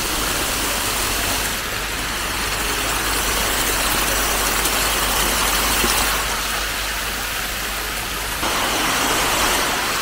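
Waterfall and cascading streams rushing steadily, an even hiss-like roar of falling water. It shifts slightly in level about a second and a half in and again near the end.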